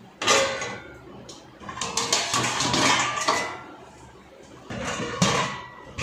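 Stainless-steel pots and plates clanking against each other and the dishwasher's wire rack as they are loaded in. It comes in three bouts of clatter: a sharp one just after the start, a longer one around two to three seconds in, and another near the end.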